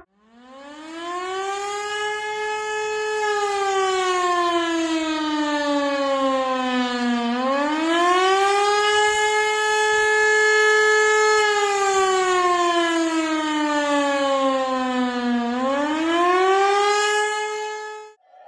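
Civil defense siren wailing: its pitch climbs over a couple of seconds, holds at the top, then slowly falls. The cycle repeats about every eight seconds, with three rises in all, and the siren cuts off suddenly near the end.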